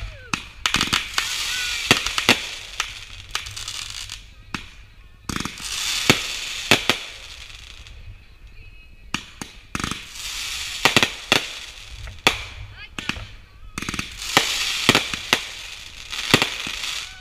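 Consumer aerial fireworks from a chain-fused backyard show firing shot after shot: sharp bangs, each followed by dense crackling. The barrage comes in four waves, roughly every four seconds.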